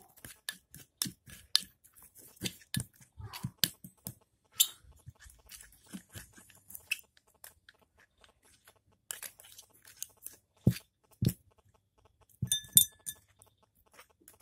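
Homemade slime being stirred and kneaded in a glass bowl: irregular clicks and scrapes of a plastic stirring stick against the glass, with a pause of about two seconds in the middle and a few louder knocks later on.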